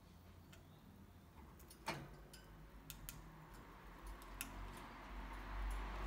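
Faint, scattered clicks and taps from budgies moving about on wooden branches and clay feed bowls, one sharper click about two seconds in. A soft hiss builds near the end.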